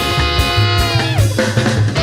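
Upbeat swing-style background music with a steady drum beat and a long held horn note that slides down about a second in.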